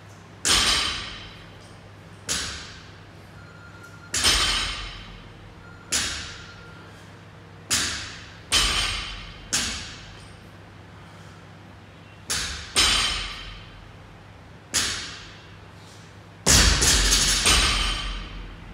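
Loaded barbells with bumper plates set down on a gym floor, a heavy thud with a short ring every second or two, some in quick pairs as from more than one lifter, and a longer, louder cluster of thuds near the end.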